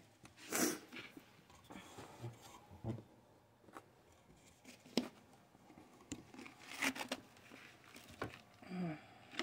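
Soft, scattered rustles and scrapes of hands working close to the microphone, with a couple of sharp clicks, as jute twine is wrapped around a foam pool-noodle sleeve on a wooden chair leg.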